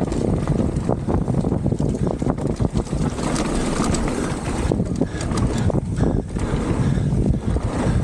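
Wind buffeting the microphone of a camera on a fast downhill mountain bike, over the crunch of knobby tyres on loose gravel and dirt, with many small clicks and knocks from the bike over the rough surface. The hiss of the tyres on gravel grows in the middle as the bike carves through a dusty berm.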